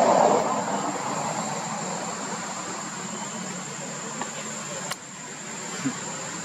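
Steady outdoor ambience: an even hiss with a constant high-pitched insect drone, loudest at the start and dipping suddenly about five seconds in.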